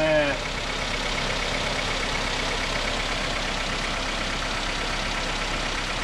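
Car engine idling with the air conditioning on, its compressor and electric condenser fan running steadily. The AC system holds twice the specified refrigerant, and its high-side pressure is climbing toward 18 kg/cm².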